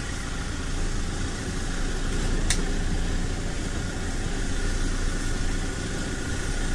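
A vehicle engine idling steadily, with a single sharp click about two and a half seconds in.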